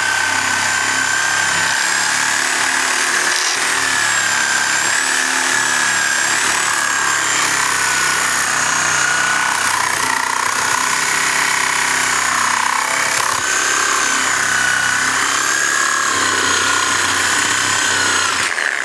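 Reciprocating saw running without a break, its blade cutting through a car tire and into the aluminum rim underneath. The motor whine wavers a little in pitch, and the saw stops right at the end.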